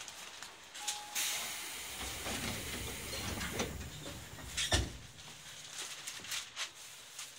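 Compressed-air hiss from a Tobu 20050 series commuter train, heard inside the passenger car, starting about a second in. A single sharp thump comes a little past the middle, and the hiss dies away soon after.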